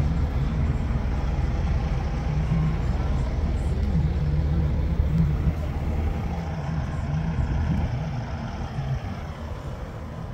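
Low steady rumble of an idling diesel semi-truck engine, easing off somewhat near the end.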